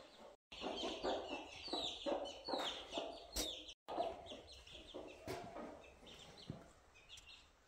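Chicks peeping in quick, high, falling notes while a mother hen clucks low, broken by two brief dropouts about half a second and about four seconds in.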